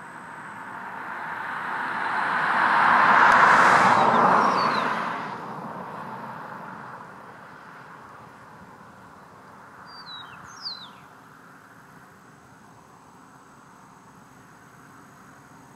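A vehicle passes, swelling to its loudest about three seconds in and fading away by six seconds. An eastern meadowlark sings clear whistles that slide downward, faintly around four seconds in and more plainly as a short phrase about ten seconds in.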